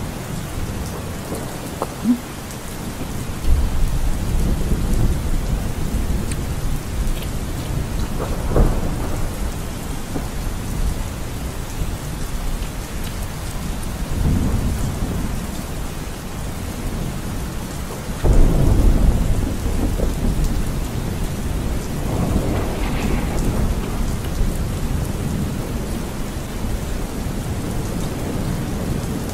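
Steady rain falling, with two low rolls of thunder: one a few seconds in and a louder one a little past the middle.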